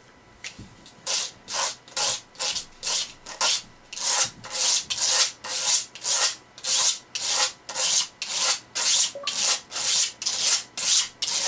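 Knife blade being stroked across a sharpening stone, a steady scraping rasp about twice a second. The chipped edge is being ground down under heavy pressure to take out the damage.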